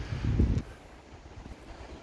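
Wind buffeting the microphone as a low rumble, dropping off about half a second in and leaving a quieter hiss.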